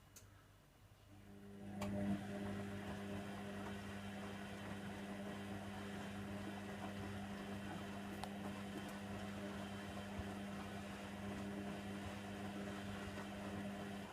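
Hoover Nextra HNWL7146 washer dryer humming steadily with a rushing, watery noise over it, starting about a second in and cutting off suddenly near the end, over a faint constant lower hum.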